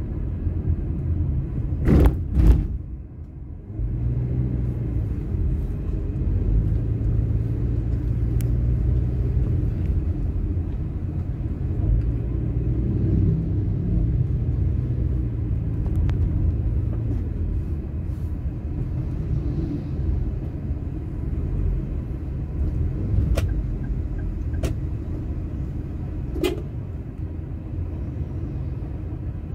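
Steady low rumble of a car's engine and tyres heard from inside the cabin while driving slowly. Two sharp knocks come about two seconds in, the rumble briefly drops quieter, then carries on, with a few faint clicks near the end.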